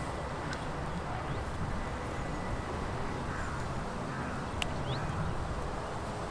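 Outdoor riverbank ambience: wind rumbling unevenly on the microphone under a steady hiss, with a few faint clicks and a brief high chirp a little past the middle.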